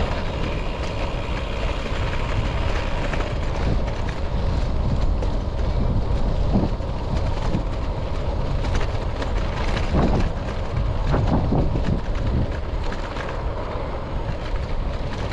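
Wind rushing over an action camera's microphone and road-bike tyres rumbling on a rough lane surface, a steady noisy rumble, with a few brief knocks from bumps partway through.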